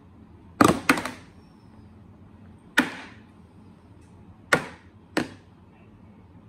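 Sharp clacks of silver bullion coins being handled on a hard surface. There are five: two in quick succession about half a second in, one near three seconds, and two close together near the end.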